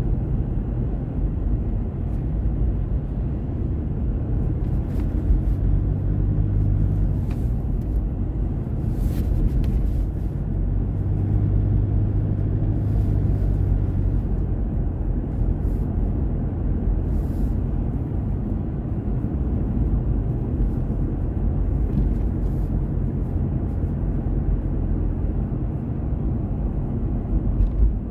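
Steady low road and engine rumble of a moving car, heard from inside the cabin, with the engine's hum swelling twice.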